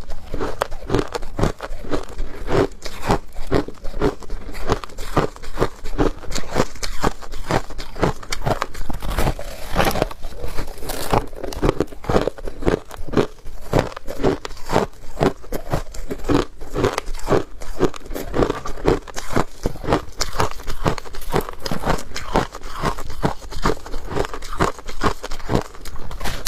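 Hard ice being bitten and chewed close to the microphone: rapid crunching and cracking, several crunches a second, steady throughout.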